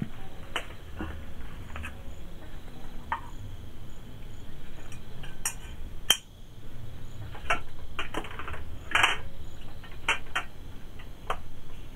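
Kitchenware and a rice cooker being handled: scattered clinks and knocks, the sharpest about six and nine seconds in. Crickets chirp steadily in the background.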